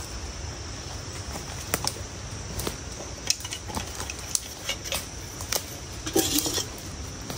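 Footsteps in dry forest leaf litter, crackling and snapping irregularly, with a longer rustle about six seconds in, over a steady high insect drone.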